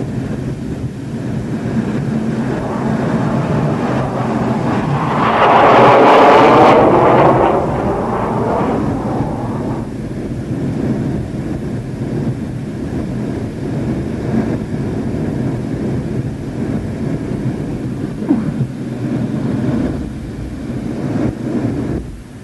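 Steady rumble of a MiG-29's twin turbofan engines and airflow heard inside the cockpit in flight, swelling to a louder sweeping rush about five to eight seconds in.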